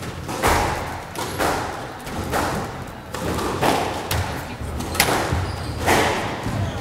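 Squash ball bounced on the wooden court floor between points, about six dull thuds spaced roughly a second apart, each with a short echo.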